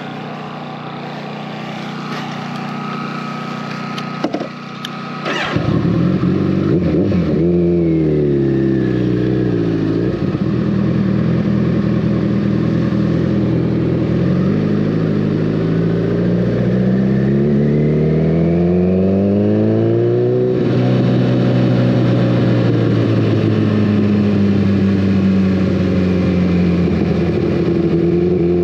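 2014 Kawasaki ZX-14R's inline-four engine through a full Brock's Alien Head 2 exhaust. It runs steadily for about five seconds, then picks up, its pitch rising and falling as the bike accelerates and slows, with a sudden drop about twenty seconds in and another climb near the end.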